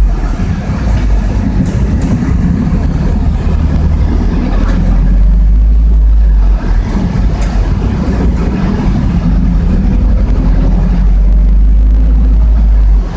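Engine and road noise of a moving route bus heard inside its passenger cabin: a loud, continuous low rumble that dips briefly about halfway through and drops off right at the end.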